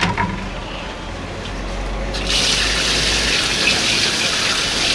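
Tap water gushing over a lobster being rinsed into a steel bowl. The steady splashing hiss starts suddenly a little over two seconds in.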